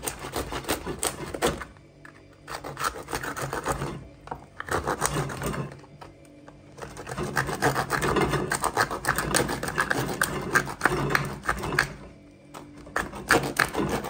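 Knife sawing lengthwise through a cooked lobster's tail shell: quick rasping strokes in runs, broken by short pauses about two, four, six and twelve seconds in.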